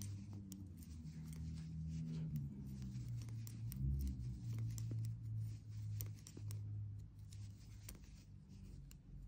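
Knitting needles and yarn being worked by hand: light clicks and ticks of the metal needles with soft rustling of the yarn. A low hum sits underneath.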